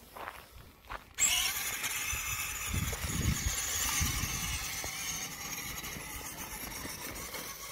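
Homemade battery-powered radio-controlled monster truck's electric motor and gears starting to whine about a second in, running steadily as the truck drives up a slope, with a few low knocks from the tyres.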